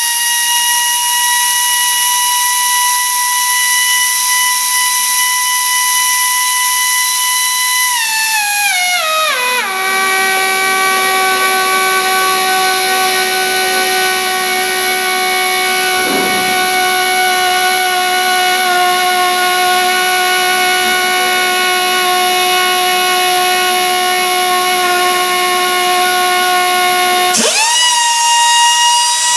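Valve grinder's motor whining steadily at a high pitch. About a third of the way in its pitch slides down to a much lower steady whine, and near the end it jumps quickly back up to the high pitch.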